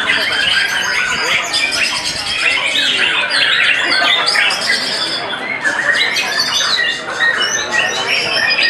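Many caged white-rumped shamas (murai batu) singing at once, a dense, unbroken mix of rapid, overlapping whistled and chirped phrases.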